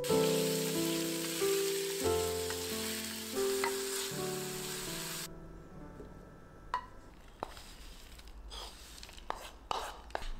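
Diced chicken sizzling as it is stir-fried in a frying pan, with a spatula stirring it. The sizzle cuts off sharply about five seconds in, followed by a few soft taps and scrapes as the cooked pieces are tipped into a wooden bowl.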